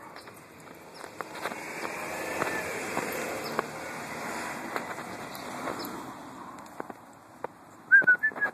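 A car passing on the street: its tyre and engine noise swells over a few seconds and fades away, with light footsteps and small clicks. A few short, loud high-pitched chirps come near the end.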